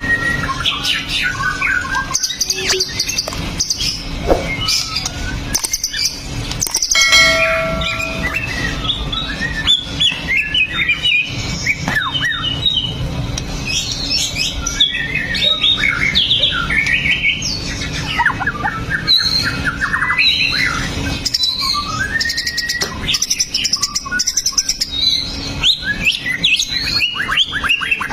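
White-rumped shama (murai batu) singing continuously: fast, varied phrases of whistles and chattering notes, with a brief held, organ-like note about seven seconds in. A steady low hum runs underneath.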